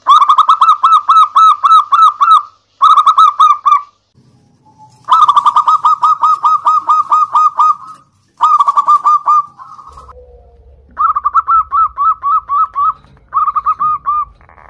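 Zebra doves (perkutut) singing: phrases of rapid, evenly spaced cooing notes, about four or five a second, in six bursts with short pauses between them. The background changes twice, as from separate recordings joined one after another.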